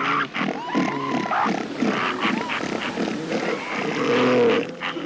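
Northern elephant seals in a breeding colony calling, several overlapping calls at once that rise and fall in pitch.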